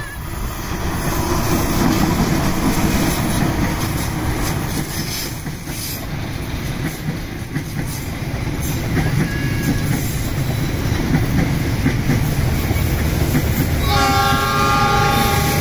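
CC206 diesel-electric locomotive and its passenger coaches passing close by: a steady heavy rumble with wheels clattering over the rail joints. For about the last two seconds a steady chord of several pitched tones sounds over the rumble.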